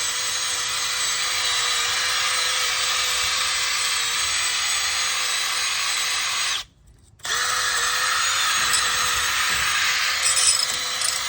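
Handheld power tool running steadily with a whine and a gritty hiss, cleaning up brake parts. It stops for under a second about six and a half seconds in, then starts again.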